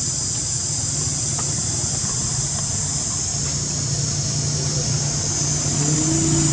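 A steady, high-pitched drone of insects, with the low hum of a motor vehicle's engine running and growing a little louder near the end.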